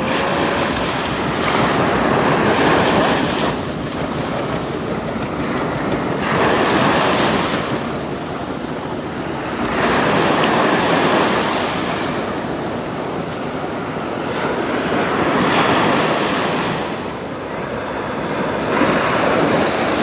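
Sea waves breaking and washing onto a sandy beach, the surf surging and easing every few seconds.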